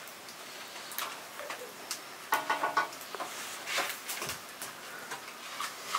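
Scattered light clicks and knocks of kitchen utensils and dishes over a faint steady hiss.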